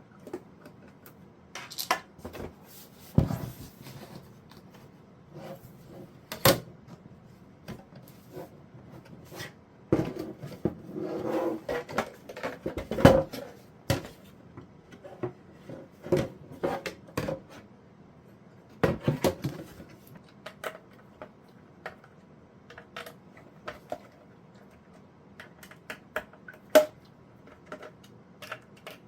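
Irregular clicks, taps and knocks of small hard parts being handled, with a stretch of rustling handling noise partway through. These are typical of working on a CCTV recorder's casing, screws and hard drive by hand.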